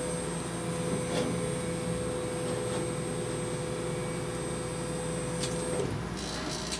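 Steady hum of a CO2 laser cutter and its cooling equipment running, with a steady tone that cuts off suddenly near the end.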